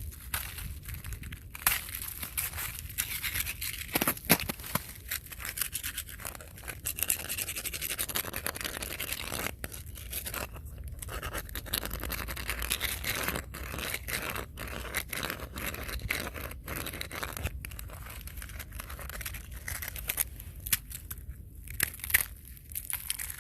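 Irregular dry crunching and crackling, a dense run of sharp clicks over a steady low rumble.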